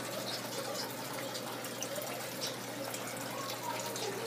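Aquarium water trickling and splashing steadily, with a faint low hum underneath.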